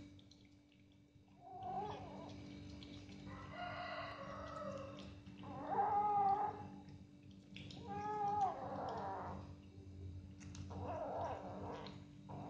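Cat meowing about five times, drawn-out calls a second or so long each, spaced a couple of seconds apart, over a steady low hum.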